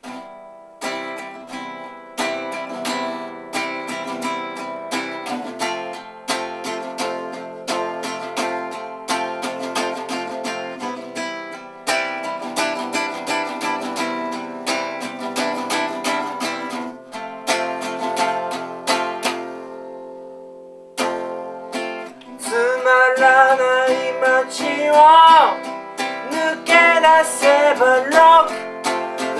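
Acoustic guitar playing, picked notes and chords in a steady rhythm. After a short pause about two-thirds of the way in, a voice starts singing over the guitar.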